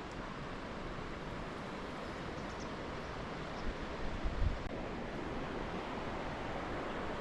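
Steady rush of flowing river water. A few brief low rumbles hit the microphone a little past halfway.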